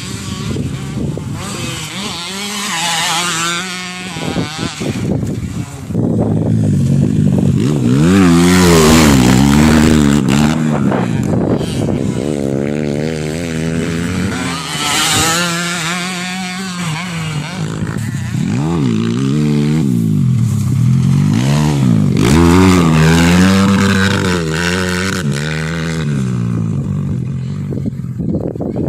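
Motocross bike engine revving hard and dropping back over and over as it corners and accelerates on a dirt track. The revving is loudest about eight seconds in and again a little past twenty seconds.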